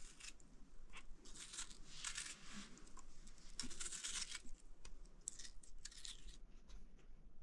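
Small knife slicing through ripe tomatoes held in the hand, a series of short, irregular crisp cuts through the skin and flesh.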